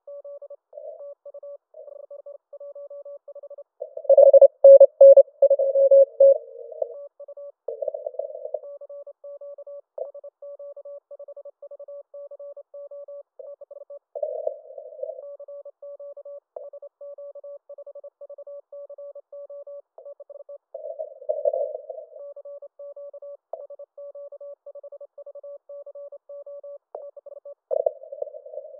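Morse code (CW) heard through a Yaesu FT-891 HF transceiver on a busy contest band: a constant stream of fast keyed beeps all at one pitch, narrowed by the receive filter, with several stations overlapping. Stronger signals break in now and then, loudest about four to seven seconds in.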